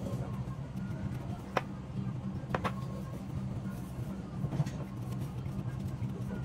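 A steady low machine hum, with a few sharp clicks and ticks as a metal eyeglass frame and lens are handled and wiped with a tissue.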